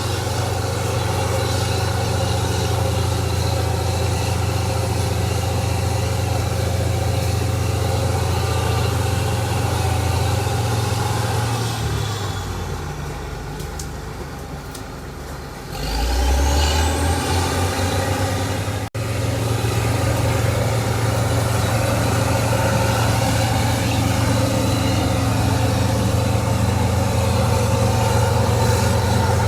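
Heavy diesel engine running hard and steady. About twelve seconds in the revs fall away for a few seconds, then the engine picks back up with a high whine that rises with it.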